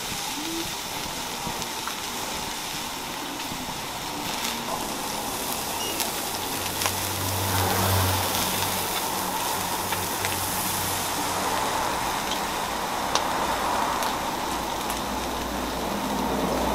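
Food sizzling on a flat-top griddle, a steady hiss, with a low hum swelling briefly about halfway through and a few light clicks of utensils.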